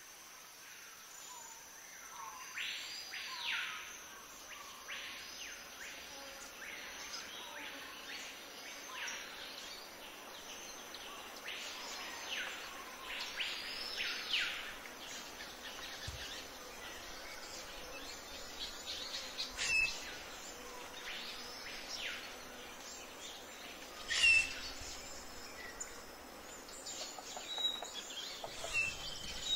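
Wetland wildlife ambience: a bird repeats a rising-and-falling whistled call every second or two over a steady high insect buzz. Near the end a few sudden sharp sounds break in.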